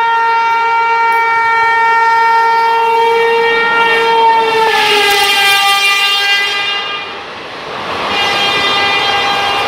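Train horn sounded in a long steady blast as an express train runs through the station, dropping in pitch about four and a half seconds in as the locomotive passes. The rush of the passing coaches follows, and the horn sounds again, lower, about eight seconds in.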